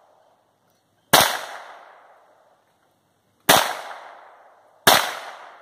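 Three shots from a Browning Buck Mark .22 LR semi-automatic pistol. Each is a sharp crack followed by an echo that dies away over about a second. The first comes about a second in and the last two about a second and a half apart.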